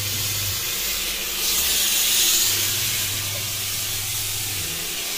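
Electric disinfectant fogging machine running, a steady spray hiss of mist over a low hum. The hiss grows louder for a moment about two seconds in.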